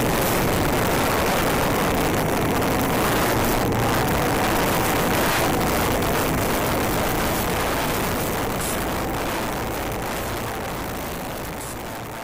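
Go-kart driving on the track: a steady rush of motor and wind noise on the microphone. It fades gradually over the last few seconds.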